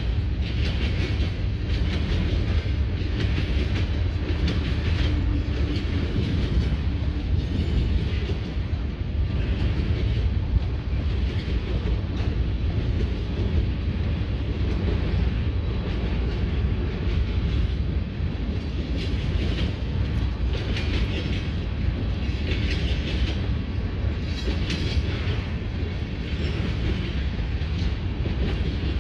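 Cars of a manifest freight train rolling past: a steady low rumble on the rails with wheel clatter that rises and falls.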